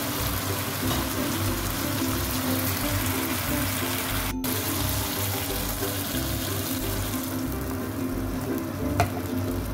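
Background music over a steady sizzling hiss from a wok of fried fish, onion and tomato; the hiss dies away about seven seconds in, once water has been added to the pan. A single sharp tick near the end.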